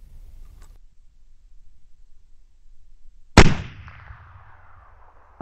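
A single hunting rifle shot about three and a half seconds in, its echo rolling away and fading over the next two seconds. A short click follows near the end.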